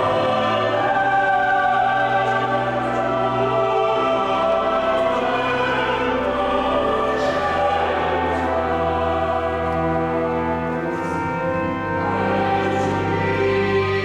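Choir singing a hymn in sustained chords over steady low accompanying notes, likely the cathedral organ.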